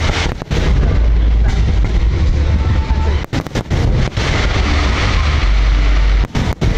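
Aerial fireworks exploding in a dense barrage, deep booms running together into a continuous rumble. The sound cuts out briefly a few times.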